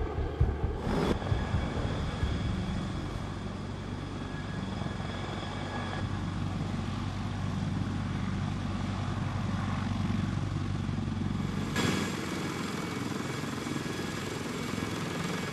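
Sikorsky CH-53K King Stallion heavy-lift helicopter running: a steady high whine from its turbine engines over a low rotor rumble. The sound changes abruptly about a second in and again near twelve seconds in.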